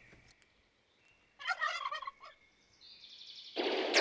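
A turkey gobbles once, a fast rattling call, about a second and a half in. Near the end a hiss swells up into a loud downward whoosh.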